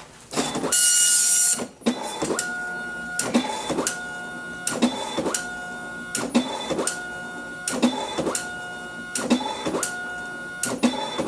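Apple ImageWriter II dot matrix printer printing a graphic. A loud harsh burst comes about a second in. After that the print head carriage sweeps back and forth about every three-quarters of a second, each pass a steady whine that ends in a click as it turns round.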